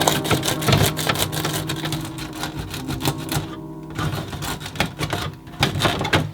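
Rapid clicking and clattering of storage containers and frozen items being handled while a freezer is organized, pausing briefly about halfway through, over faint steady tones.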